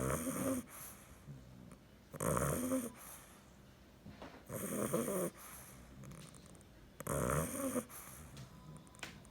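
Nine-week-old bulldog puppy snoring in its sleep: four regular snores, a little over two seconds apart, with quiet breathing between them.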